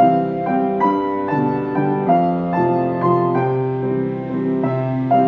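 Solo piano playing a melody over chords, with a new note or chord struck every quarter to half second.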